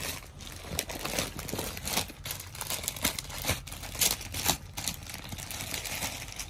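Glossy saree catalogue pages crinkling and rustling as they are handled and fanned out, in irregular crackles.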